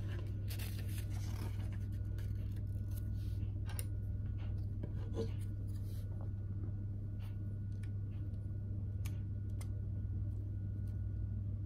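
Small plastic LEGO pieces being handled and pressed together: scattered light clicks and rubbing over a steady low hum.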